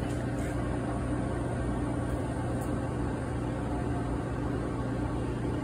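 Harvest Right medium freeze dryer running at the start of its chamber cool-down, a steady low machine hum with an even whirring hiss.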